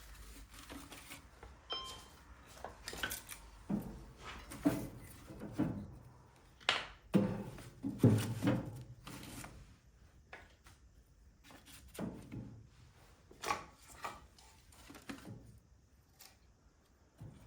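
A string of irregular light knocks and thunks, like objects being handled, louder in the first half and sparser near the end.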